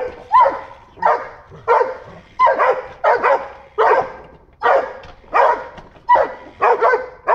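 Two dogs barking excitedly and repeatedly, about two sharp barks a second, at a possum cornered on top of a fence.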